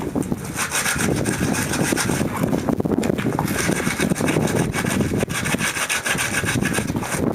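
Sandpaper rubbed by hand over the dry, stiff skin side of a sheep pelt: continuous rapid back-and-forth scratching strokes, smoothing off the rough, knobbly patches.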